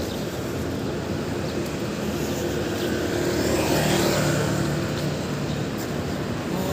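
Street traffic on a multi-lane city road: a steady wash of passing cars, with one vehicle's engine hum swelling about halfway through and fading again.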